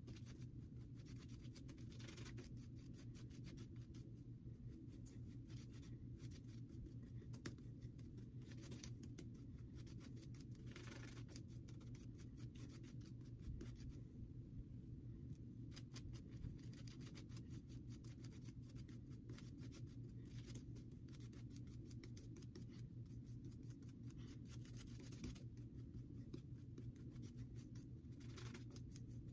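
Soft badger shaving brush (Declaration Grooming B4) swirling shaving-soap lather on a face: faint, continuous scratchy brushing. The lather is being worked with added water because it is still not slick enough.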